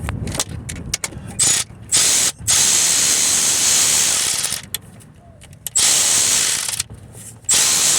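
Ratchet wrench tightening an alternator mounting bolt: a few single clicks, then several runs of rapid ratchet clicking about a second or two long, with short pauses between strokes.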